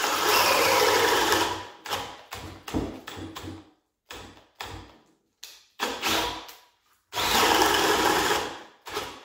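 Milwaukee M18 compact brushless drill driving a 1¼-inch spade bit into a block of wood in high gear (speed 2). It stops and starts: two longer runs of about a second and a half, with short trigger bursts between and after them. In speed 2 the drill cannot bore the hole.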